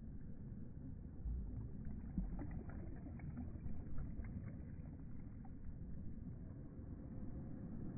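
Small sea ripples lapping and sloshing at the water's surface right at the microphone, a low steady wash with scattered light droplet ticks in the middle.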